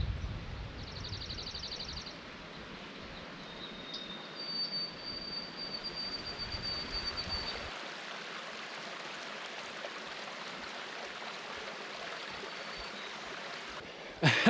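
Steady outdoor hiss of water-like ambient noise with a few songbird calls: a quick trill about a second in and a long, thin high whistle a few seconds later.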